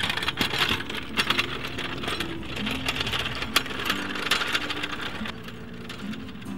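A fast, dense rattling clatter, with soft guitar music underneath.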